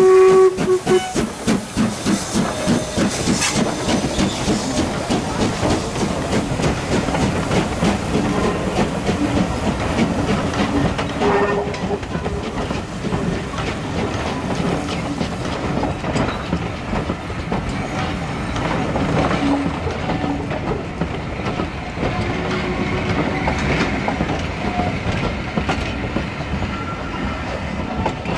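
Black Five steam locomotive passing at speed. The tail of a whistle blast ends just after the start, then comes its rhythmic exhaust beat as the engine goes by. A long rake of coaches follows, rattling past with wheels clicking over the rail joints.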